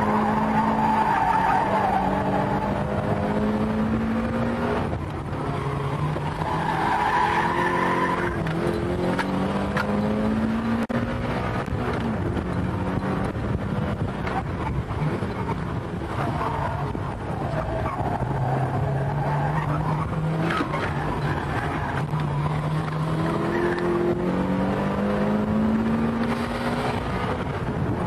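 A car's engine is driven hard, revving up and dropping back again and again through the gears, and the tyres squeal in bursts several times as the car slides through corners. It is heard from inside the car.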